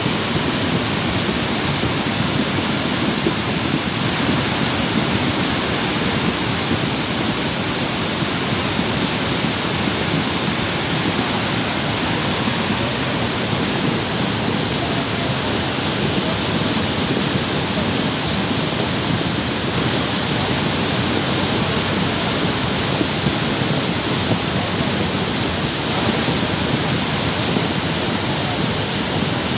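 Cold lahar flood from Semeru, a fast torrent of muddy water carrying sand and stones, rushing steadily and loudly.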